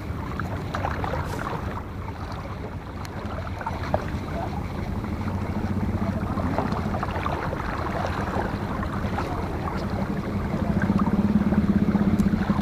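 Boat engine running, a steady low drone that grows louder toward the end.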